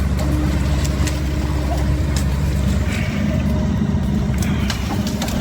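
A large engine running steadily at a constant pitch, with scattered sharp clicks and cracks over it.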